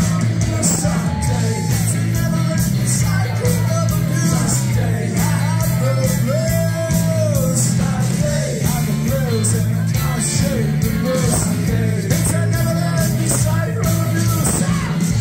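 Post-punk band playing live and loud: a heavy, steady bass line, drums with regular cymbal hits and electric guitars.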